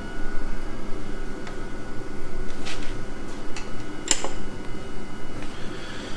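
Steady mechanical hum in a garage workshop, with a few sharp metallic clicks and knocks from parts being handled on a stripped-down engine block; the clearest click comes about four seconds in.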